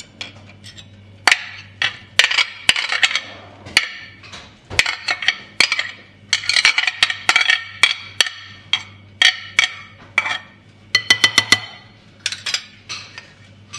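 Sharp knocks and clinks of a utensil tapping against a plate and a glass mixing bowl as grated carrot, raisins and apple are scraped into cake batter. Some come singly and some in quick runs of several taps, with a faint steady hum underneath.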